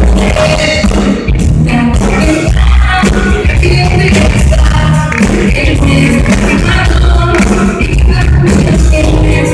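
Live band playing with a woman singing lead: electric guitars, bass guitar and drum kit with a steady beat. The recording is so loud that it clips and distorts.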